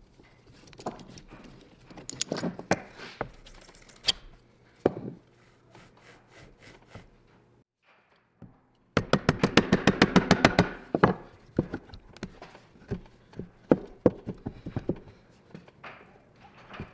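Clicks and knocks of metal tools and parts being handled while an old electric motor is taken apart. Just past halfway comes a loud, fast run of clicks, about a dozen a second, lasting about two seconds.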